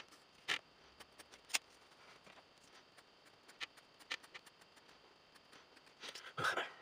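Faint pencil-on-paper sketching sounds: scattered light ticks and short scratches of the graphite on drawing paper, with a louder rustle near the end.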